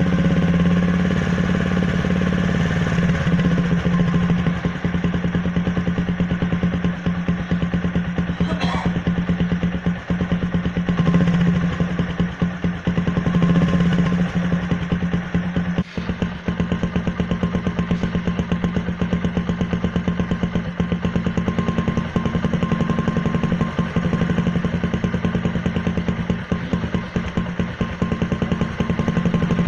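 Motorcycle engine running steadily, its exhaust blowing into a plastic bottle tied over the silencer outlet. The result is a steady low drone with a rapid, even pulsing.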